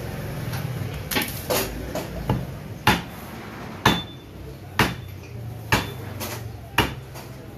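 Meat cleaver chopping through a rack of beef ribs onto a wooden chopping block: about ten sharp chops, roughly one a second, starting about a second in.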